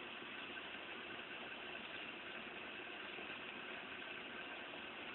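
Steady rainfall during a thunderstorm, an even hiss with no thunderclap or other sudden sound.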